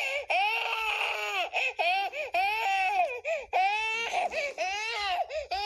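A baby girl crying: a run of short, high wails that rise and fall in pitch, broken by quick catches of breath.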